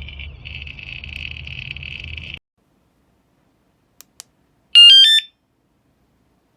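Bike alarm siren sounding as a steady high wavering tone, cut off abruptly about two seconds in. After a silent pause come two faint clicks, then a loud, short run of electronic beeps stepping between pitches about five seconds in.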